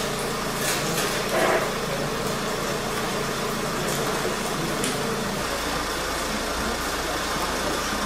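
Steady background noise with a low engine-like hum, as of a motor idling. About five and a half seconds in, the hum gives way to a deeper rumble.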